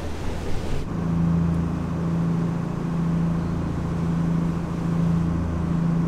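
Old trawler's inboard diesel engines running steadily under way, a constant low drone heard from inside the cabin, starting about a second in after a brief stretch of wind and water noise.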